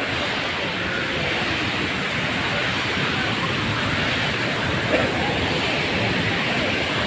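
Steady rush of a waterfall and its river rapids: an even, unbroken noise with no rhythm. Faint voices briefly about five seconds in.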